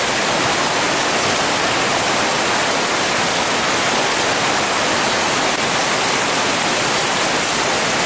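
Heavy rain falling steadily, splashing on the flooded street and pouring off the edges of tarpaulin awnings.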